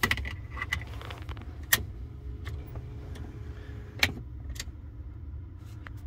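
A few sharp metallic clicks, the loudest a little under two seconds in and at about four seconds, over a steady low rumble inside a Mercedes W140's cabin.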